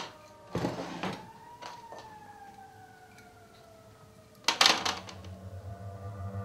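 A click and a short rustle, then a faint tone that falls slowly in pitch for about three seconds, like a siren winding down. About four and a half seconds in comes a loud rustling clatter, and a low sustained music drone begins after it.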